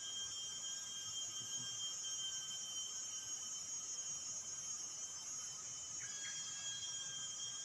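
Steady insect chorus: a dense high hiss with several thin, unbroken tones beneath it, unchanging throughout.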